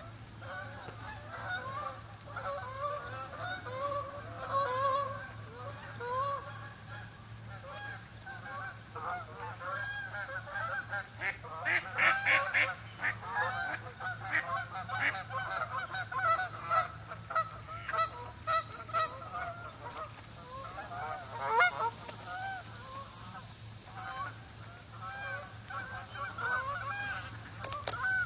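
A flock of geese honking continuously, many calls overlapping at once, with a louder run of sharper calls about twelve seconds in. One sharp click stands out near the end, the loudest sound of all.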